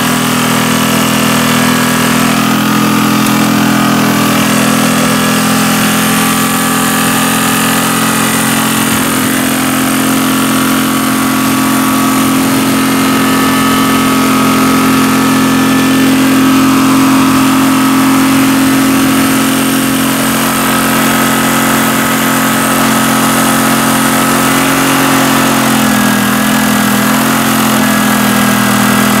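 Small single-cylinder engine of a Yamaha EF2800i generator running steadily on gasoline vapor fed through a hose and ball valve. Its speed wavers slightly near the end.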